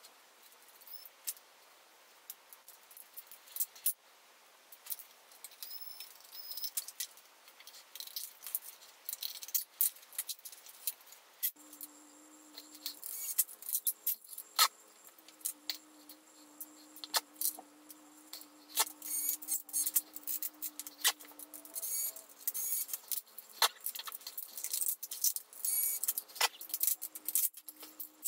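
Small metal and plastic laptop parts clicking, clinking and rattling as a laptop is taken apart by hand, in quick irregular ticks. About halfway through, a steady low hum joins in and carries on with short breaks.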